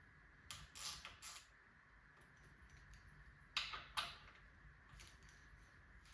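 A few light clicks and taps from bike parts and tools being handled during a fork install: a small cluster about half a second to a second and a half in, then two sharper clicks around three and a half and four seconds in, over faint room noise.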